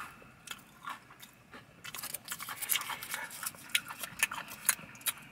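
Faint, irregular crinkling and clicking of a fortune cookie's paper slip and wrapper being handled in the fingers, thickest from about two seconds in.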